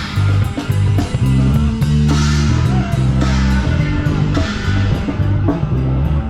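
Rock music with guitar, bass guitar and drum kit playing to a steady beat.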